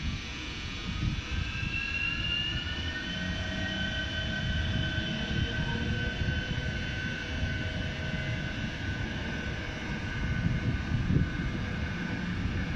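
Škoda 109E0 electric locomotive pulling away: a whine from its traction drive climbs in pitch over the first few seconds, then holds steady over a low rumble.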